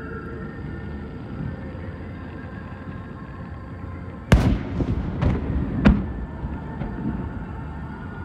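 Aerial fireworks shells bursting: a sharp, loud bang about four seconds in, then three more reports within the next second and a half, over a steady low background.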